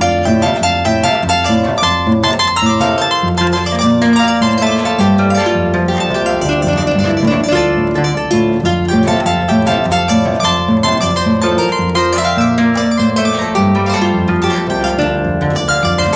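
Background music of quick plucked-string notes over a steady bass line.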